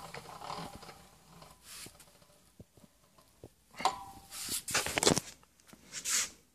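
Handling noises at a milling machine: scattered small clicks and scrapes, then louder rustling scrapes. About four seconds in there is a short metallic clink with a brief ring.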